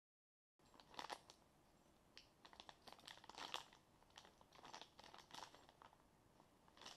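Clear plastic bag of faucet mounting hardware crinkling as it is handled, in an irregular run of short crackles that begins about half a second in, after a brief dead gap.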